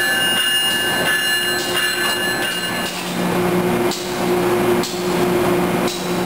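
A standing locomotive's steady hum with a high whine, and a few sharp metallic knocks about a second apart in the second half as the coupling gear between locomotive and car is handled.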